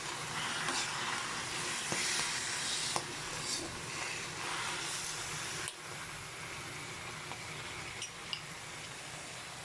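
Petchay (bok choy) greens sizzling as they are stir-fried in a pan, with a few light knocks along the way. The sizzle drops a little in loudness about halfway through.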